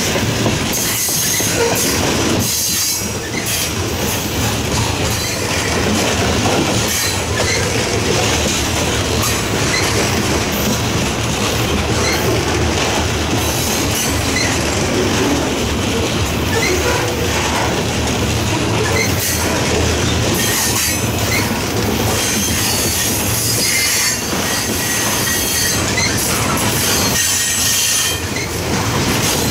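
Freight train of covered hopper cars rolling past close by: a steady, loud rumble and clatter of wheels on the rails, with a high wheel squeal that comes and goes.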